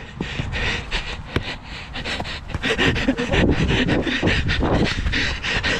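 Heavy, rapid panting of a footballer running hard, breathing close to a body-worn camera's microphone. It grows louder and quicker from about halfway through.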